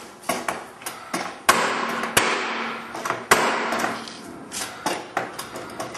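Red cordless nail gun firing nails through the OSB skin of a structural insulated panel into the spline at the joint: a string of sharp shots with smaller clicks between them, the loudest three coming about a second apart, and a low hum between shots.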